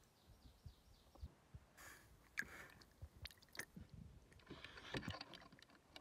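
Faint, scattered clicks and light knocks from a freshly caught brook trout being handled in a rubber landing net and lifted over the water, with drips falling back into the lake.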